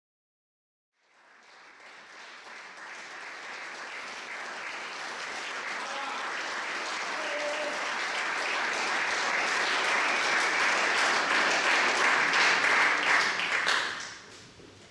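Audience applauding in a hall for a pianist seated at a grand piano. The clapping begins about a second in, grows gradually louder, then dies away shortly before the end.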